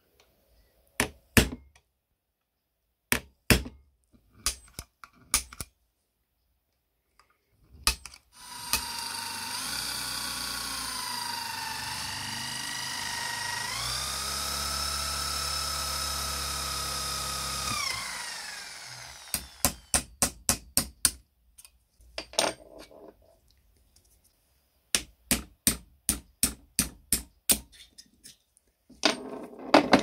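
A hammer strikes a center punch on a rusty iron door-closer arm in a vise, several separate sharp blows. Then a power drill bores into the iron for about ten seconds, its whine shifting in pitch as it works and winding down at the end. Quick runs of light metal taps follow.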